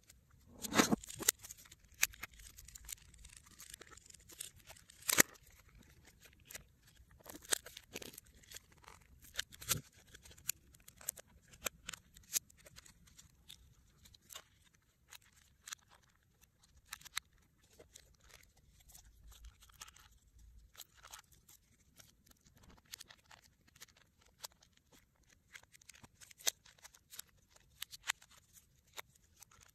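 Irregular small clicks, taps and light scraping from hands handling a partly disassembled BlackBerry Q10 smartphone, its plastic frame and circuit board. A cluster comes about a second in and the sharpest knock about five seconds in, with sparser, fainter clicks after that.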